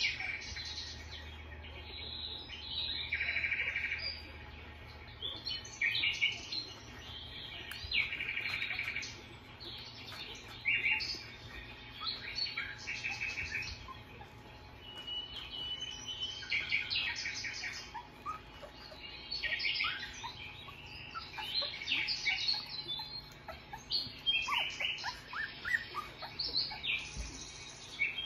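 Newborn Australian Shepherd puppies squeaking and whimpering as they nurse: many short, high-pitched squeals and chirps, a second or two apart.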